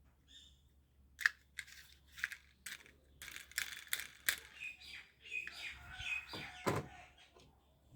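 Toy vehicles being handled: an irregular run of sharp clicks and rattles, busiest in the middle, with a few short high squeaky chirps near the end.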